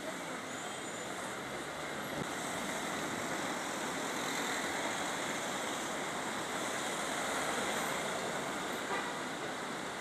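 Steady city traffic noise of cars and buses standing and moving slowly at a junction, a constant hum and hiss.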